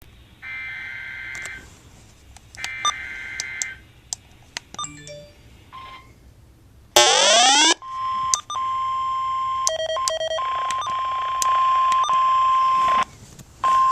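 Emergency alert tones: two roughly one-second bursts of digital data tones and scattered clicks and beeps, then a loud rising sweep about seven seconds in. A long steady single-pitch alert tone follows, briefly broken a few times, and heralds a tornado warning.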